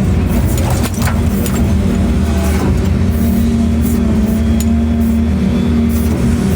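A large engine running steadily at an even pitch, with a few scattered knocks or clanks.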